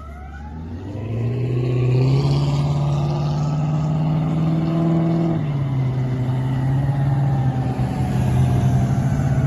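Fire engine pulling away: its diesel engine revs under load, dropping in pitch at a gear change about five seconds in, while a mechanical siren winds up over the first two seconds and then slowly coasts down.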